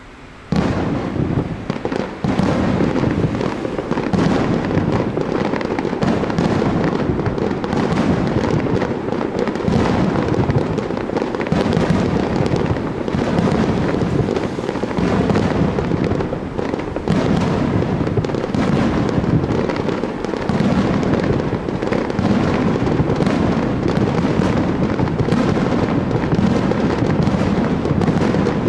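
Fireworks display: a rapid, unbroken barrage of overlapping bursts and booms with echoing rumble, starting abruptly about half a second in.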